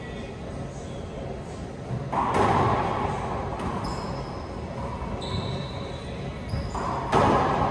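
Racquetball hits and bounces echoing around an enclosed court: a loud strike about two seconds in and another near the end, each ringing on and fading slowly. Between them come a few short high squeaks of shoes on the hardwood floor.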